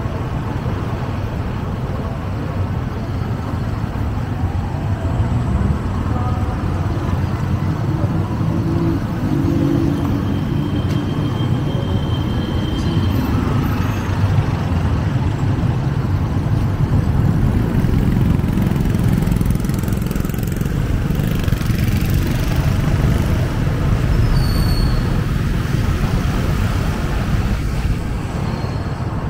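Street traffic of motorbikes, tuk-tuks and cars heard from a moving vehicle: a steady low rumble of engines, tyres and wind, with a few faint brief high tones.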